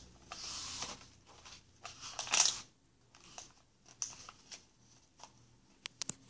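Soft rustling and light tapping of small hands on the pages of a hardcover picture book, with a louder rustle about two and a half seconds in and a few quick clicks near the end.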